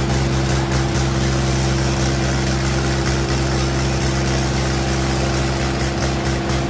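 Diesel tractor engine running steadily at constant revs while pulling in a tractor-pulling contest.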